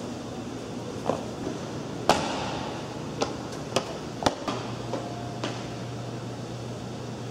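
A person's knocks and footfalls on a hard tiled hallway floor: a handful of sharp hits, the loudest about two seconds in with a short echo, then steps fading out, over a steady low hum.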